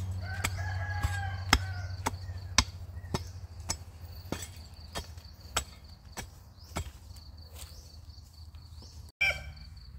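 A steel hoe blade chopping into hard, compacted old potting soil and breaking up the dried clods, about one and a half blows a second. The blows get lighter in the second half.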